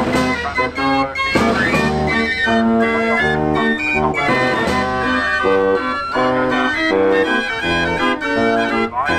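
49-key Marenghi fair organ playing a tune, its pipes sounding short, evenly repeated chords over alternating bass notes in a steady oom-pah rhythm.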